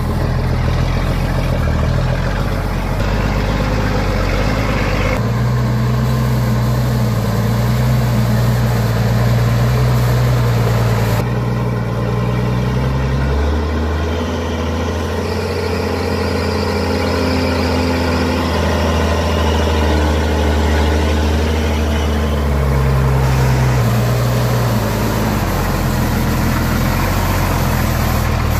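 Heavy truck engine running continuously, its engine speed shifting up and down between steady levels several times.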